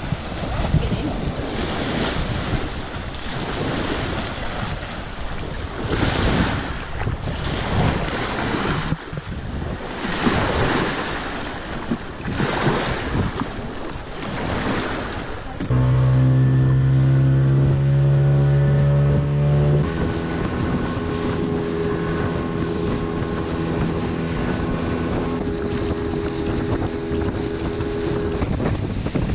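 Wind buffeting the microphone over small waves washing on the shore. Then, after an abrupt cut about halfway through, a small boat's outboard motor running steadily and loudly, its note shifting once about four seconds later as the boat runs on through the water.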